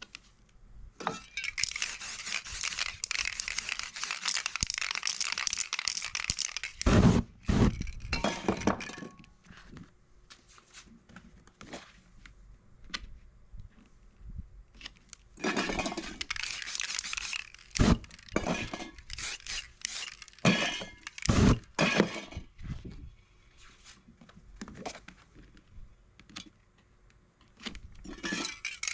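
Aerosol spray paint cans hissing in long bursts, with knocks, clinks and scraping in between as cans and paper masking pieces are handled on the board.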